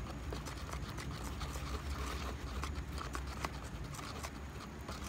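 A stir stick swirls epoxy resin mixed with chopped glass fibres in a plastic mixing cup, making light, irregular clicks and scrapes against the cup, over a low steady hum.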